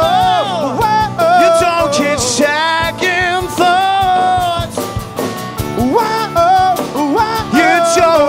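Live rock band playing: male vocals singing long, wavering held notes over acoustic guitar, electric guitar, bass guitar and drum kit.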